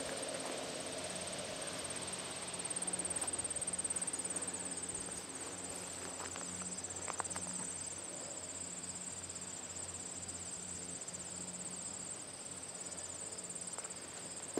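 Insects trilling in a steady, high-pitched chorus of fast pulses, unbroken throughout.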